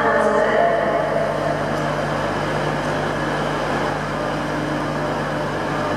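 Class 319 electric multiple unit pulling away from the platform: a steady electrical hum. A higher tone fades out during the first second.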